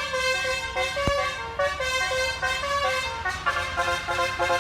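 Bus's Basuri telolet musical horn playing a melody of stepped notes, quickening into rapid repeated notes near the end. A single sharp click sounds about a second in.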